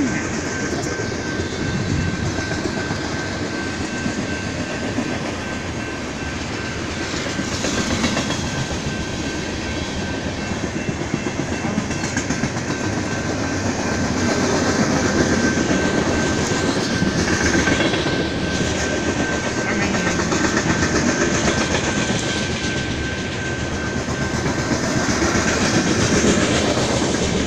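A BNSF coal train's open-top coal cars roll steadily past, with wheels clattering over the rail joints in a continuous rumble. A thin, steady high-pitched tone runs underneath throughout.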